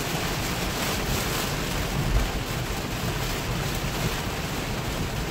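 Heavy rain hitting a moving car and its tyres hissing through water on the road, heard inside the cabin of a Tesla Model 3 as a steady rushing noise.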